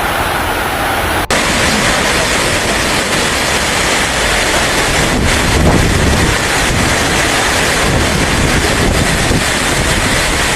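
Storm noise: wind buffeting the microphone over a steady rush of water. There is a hard cut about a second in to another clip of the same kind of sound.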